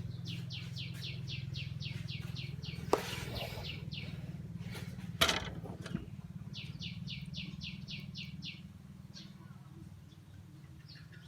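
A bird calling in fast runs of high chirps, about six a second, twice over. Two sharp knocks fall in between, the second one the loudest sound, over a steady low hum.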